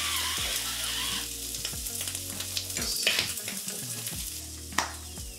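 Bacon and spinach sizzling steadily in a frying pan, with a salt-and-pepper mill grinding over it during the first second or so and a few light clicks of cooking.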